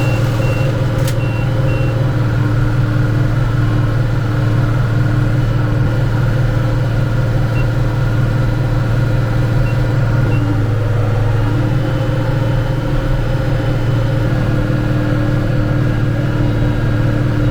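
Tractor engine running steadily under load, pulling a round baler through hay. A monitor beeps repeatedly for the first two seconds, with a single click about a second in.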